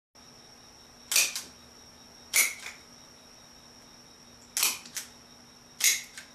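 Wooden rubber band hand gun firing four times, each a sharp snap followed a fraction of a second later by a lighter tick, over a faint steady hiss.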